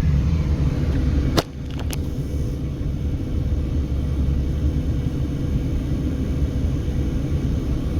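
Steady low road and engine rumble heard inside a moving car's cabin, with one sharp click about a second and a half in, after which the rumble briefly drops quieter.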